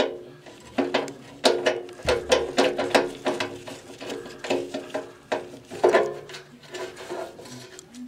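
Irregular metallic clanks and knocks, about a dozen sharp hits each with a brief ring, from work on the sheet-metal cabinet and blower housing of an old Carrier furnace.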